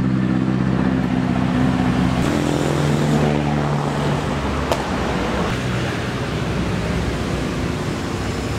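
Road traffic: a motor vehicle's engine runs close by with a steady note that shifts about two seconds in, then fades into the steady noise of passing traffic.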